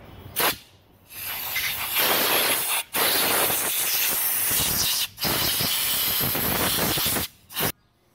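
Compressed-air blow gun blasting dirt off an outboard's lower-unit water-pump mounting surface, in hissing bursts: a short blip, three long blasts of about two seconds each with brief gaps between them, and a final short blip.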